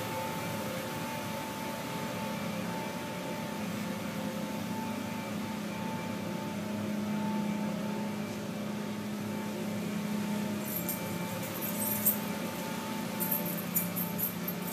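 Steady hum of building machinery, with a low steady tone and a higher steady tone over it. From about ten seconds in there are light metallic clinks and jingles.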